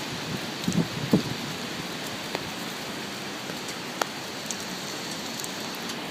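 Steady heavy rain of a hurricane, with a few sharp drops striking close by. A couple of low thumps about a second in are the loudest moment.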